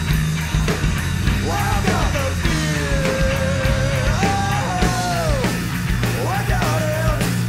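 Heavy rock song: bass, guitar and drums playing steadily, with a vocal line coming in about a second and a half in and holding long notes.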